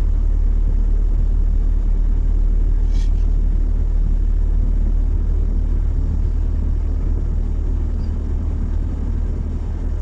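Steady low rumble of a car on the road, heard from inside the cabin, easing slightly near the end.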